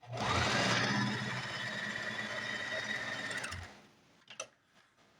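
Singer Simple 3337 sewing machine stitching a seam through fabric: the motor spins up with a rising whine, runs steadily for about three and a half seconds, then stops. A light click follows about a second later.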